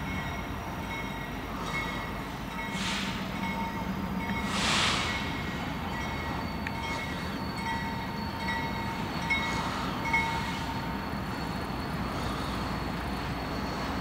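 Kansas City Southern diesel locomotive and its double-stack container train rolling slowly past: a steady engine rumble with thin, steady high-pitched tones over it. Two brief hisses come about three and five seconds in.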